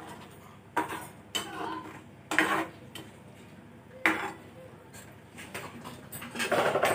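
Steel ladle stirring a watery dal in a stainless-steel pan, clinking and scraping against the pan about five times.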